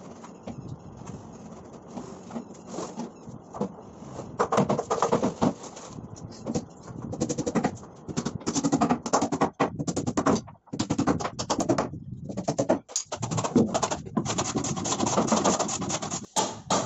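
Hand woodworking on a plywood box: sandpaper rubbing for the first few seconds, then bursts of rapid, sharp strokes as a hammer drives small nails into a plywood lid and a hand plane shaves its edges near the end.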